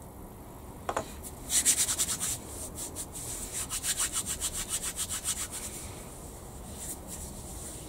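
Quick, rhythmic rubbing strokes, several a second, cleaning up a small plastic model-kit part. There is a light click about a second in, and the strokes stop about two-thirds of the way through.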